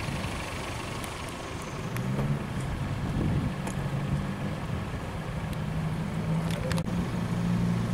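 Motor vehicle driving slowly, heard from on board: road rumble, with a steady low engine hum settling in about two seconds in.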